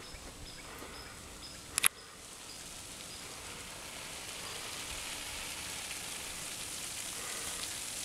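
Outdoor ambience: a short high chirp repeating about twice a second, a sharp knock a little under two seconds in, then a steady high hiss that slowly grows louder.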